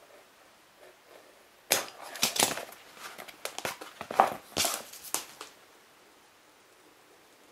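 Curved soft foam mask parts being handled and set down on a plastic cutting mat: a quick run of scuffs, rubs and light knocks starting a little under two seconds in and stopping after about five seconds.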